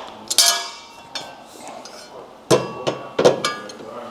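Steel mounting hardware clanking and knocking together as it is handled. There are about three sharp metallic strikes, each ringing briefly, with lighter knocks between them.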